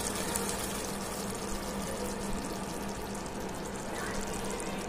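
Thick chicken tikka gravy bubbling and sputtering as it simmers in the pan, a steady fine crackle over a low, even hum.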